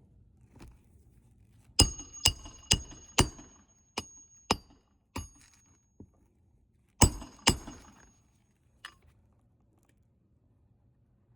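Metal hammer blows with a ringing metallic tone, typical of driving roofing nails during a shingle replacement. A quick run of four blows about half a second apart, a few lighter ones, then two more strong blows and a last light tap.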